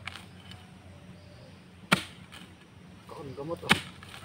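Two sharp chopping strikes, evenly paced about a second and three-quarters apart, each a short hard hit. A faint voice is heard briefly just before the second.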